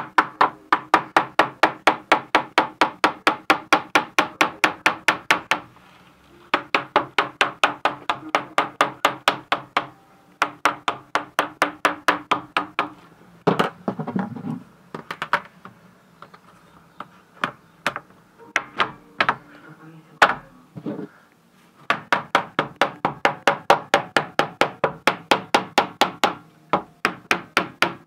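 Rapid, even hammer taps, about four or five a second, in runs of several seconds with short pauses between and a few scattered taps near the middle: glazing beads being knocked back into a PVC window frame.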